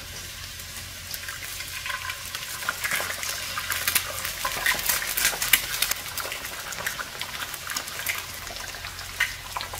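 Whole eggs frying in hot green onion oil in a skillet alongside sliced bitter melon, a steady sizzle with frequent sharp crackles of spattering oil.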